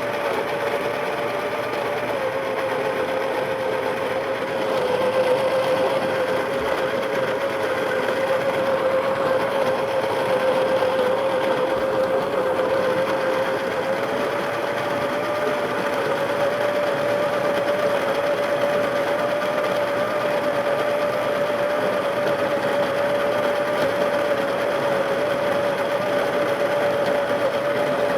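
Baratza Preciso conical burr coffee grinder running continuously under load through a large batch of beans: a steady motor whine with grinding noise, its pitch sagging slightly a few seconds in and then slowly creeping back up.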